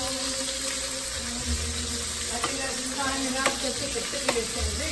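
Shrimp sizzling steadily in a hot frying pan, with a few sharp clicks of metal tongs against the cookware.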